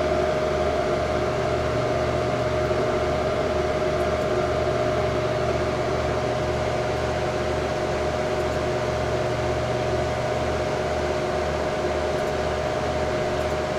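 HP Pavilion A1210N desktop computer running: a steady whirring hum from its fans and hard drive, with a low drone pulsing about twice a second. The hard drive is busy, going nuts loading startup programs. One low hum drops away about ten seconds in.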